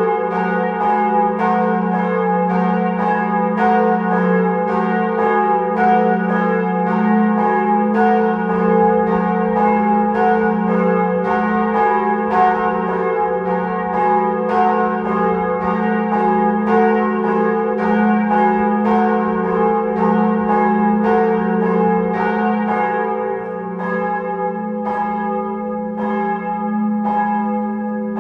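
Church bells pealing: several bells struck one after another, about one and a half strikes a second, their tones ringing on and overlapping. Near the end the strikes thin out a little.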